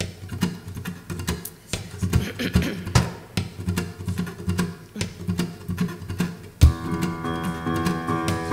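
Opening of a live acoustic song: acoustic guitar playing with rhythmic percussion strokes. About six and a half seconds in, a strong accent lands and fuller, sustained chords enter.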